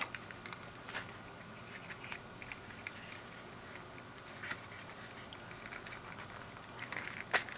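Faint handling noise of a replacement ear pad being worked onto a Sony MDR-V250 headphone ear cup: light rustling and small scattered clicks of fabric and plastic, with one sharper click near the end.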